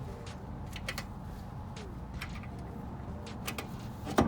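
Scattered light metallic clicks and taps of wheel-hub parts being handled as a cap is lined up on the spindle over a freshly greased wheel bearing, with one sharper knock near the end.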